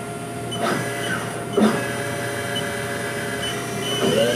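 Haas VF-3 vertical machining center spindle and drive running with a steady whine of several tones, with two brief sweeping sounds about two-thirds of a second and a second and a half in. Near the end the pitch begins to rise as the spindle speeds up toward 10,000 rpm.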